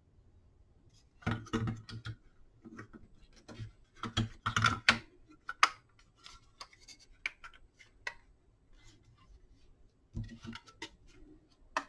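Irregular plastic clicks and knocks as a Ryobi P117 charger's circuit board is seated in its plastic housing and the case is handled, busiest about a second in and again around four to five seconds.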